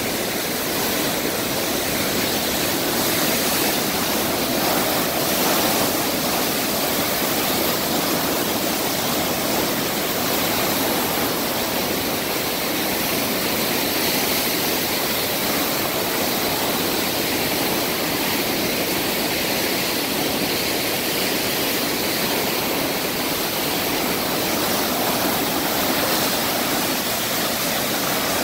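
High flood release from a dam outlet: water surging out of a conduit into a concrete stilling basin, churning whitewater rushing steadily.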